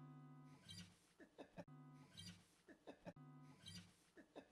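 Faint guitar music. A chord rings and fades, then a short figure repeats about every second and a half.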